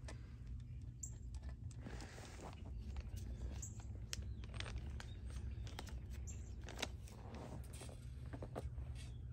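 Scattered light clicks and taps from handling wooden boards and a tape measure, with a few faint high chirps, over a steady low rumble.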